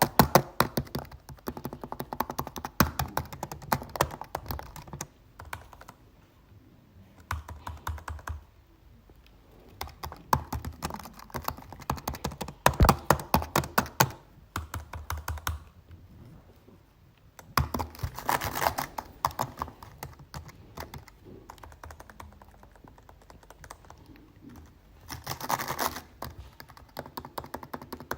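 Typing on a computer keyboard: runs of rapid key clicks in bursts, broken by short pauses.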